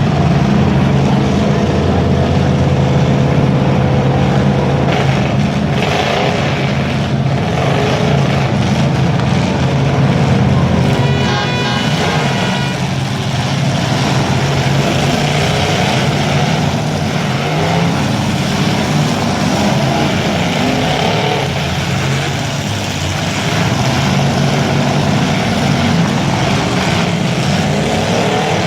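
Demolition derby cars' engines running and revving loudly together through the heat. A short high pitched tone sounds briefly about eleven seconds in.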